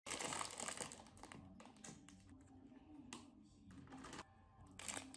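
Plastic instant-ramen packaging being handled, crinkling and crackling. It is densest in the first second, then comes in short, scattered crackles and light clicks.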